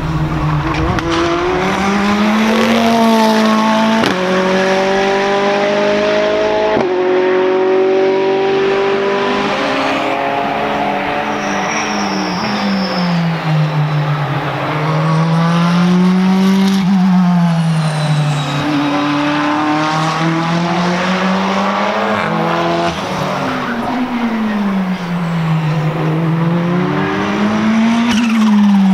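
Ferrari 488 GT3 race car's twin-turbo V8 running hard on track, its engine note climbing through the revs and dropping abruptly at quick gear changes, then swelling and falling away in long sweeps as it passes and laps.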